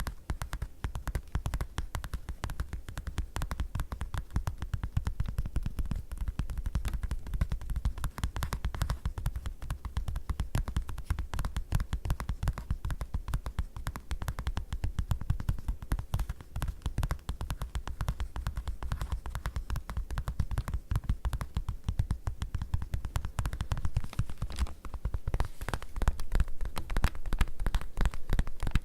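Fingers tapping rapidly on leather: a dense, continuous run of taps.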